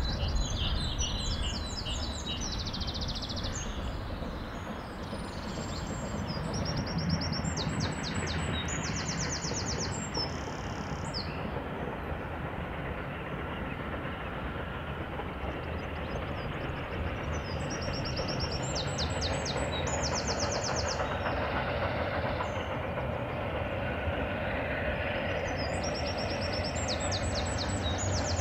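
Steam-hauled train approaching from a distance: a steady rumble that grows slowly louder. Small birds sing short, rapid high trills several times over it.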